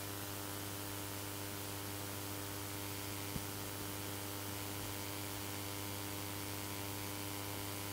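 Steady electrical hum with hiss from the Rode XDM-100 USB microphone's headphone monitor output, a constant tone with many evenly spaced overtones that never changes. It is interference that makes the monitor output unusable, which the owner thinks may come from a nearby phone tower. A faint tick about three seconds in.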